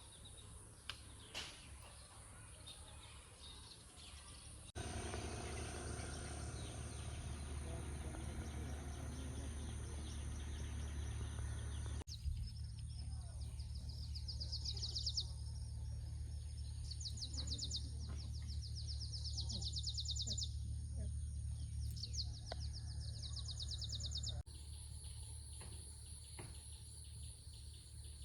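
Outdoor ambience that changes abruptly a few times: a steady low rumble of wind or distant traffic, with a small bird singing rapid trills, several times, through the middle. Near the end it drops to a quieter steady high buzz of insects.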